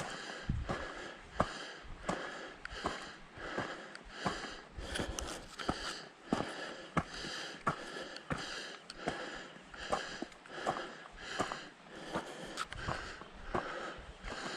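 A hiker's footsteps on a trail, one step about every three-quarters of a second, with the hiker's breathing rising and falling under them.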